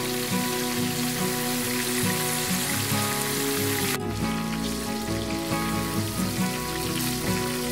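Hot oil sizzling steadily in a wok as whole fish deep-fry, with background music underneath.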